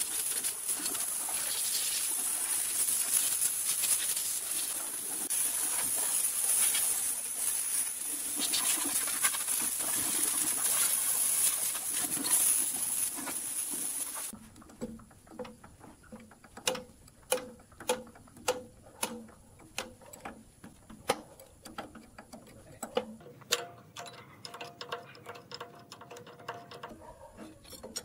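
Compressed-air blow gun hissing steadily as it blows sawdust out of an old woodworking planer, then cutting off suddenly about halfway through. After it come a series of sharp taps, about one or two a second.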